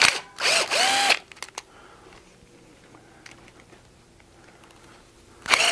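Cordless drill-driver whirring in two short runs within the first second and again starting near the end, its pitch rising and falling as it spins up and stops, backing out the Phillips screws that hold the rubber end buttons on a bow press. Faint clicks of handling between the runs.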